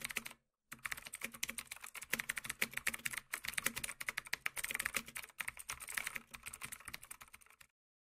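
Rapid computer-keyboard typing clicks, a sound effect for text being typed on screen, with a brief pause just after the start and an abrupt stop shortly before the end.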